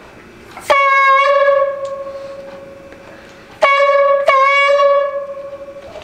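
Homemade balloon-membrane horn, a balloon stretched over a sewing-thread spool with a cut plastic bottle as the bell, blown by mouth: two long honks at one steady pitch. The first starts about a second in and fades away; the second comes a little past halfway, with a quick re-attack in its middle, and stops near the end.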